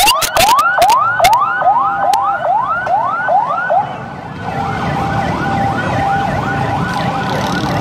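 Ambulance siren sounding in quick rising sweeps, about two or three a second. A little past halfway it changes to a different pattern, a held tone with faster sweeps. Crowd commotion runs underneath, and a few sharp clicks fall in the first second or so.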